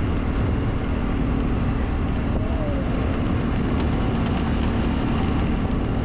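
Motorbike engine running steadily under way, with wind rumbling on the microphone.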